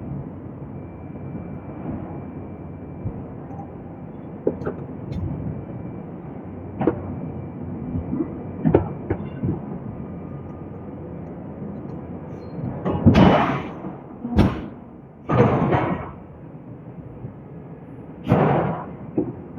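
Hydraulic forging hammer striking a steel billet: four heavy blows in the second half, one of them a very sharp crack, over steady workshop machinery noise. Scattered light metal knocks come earlier.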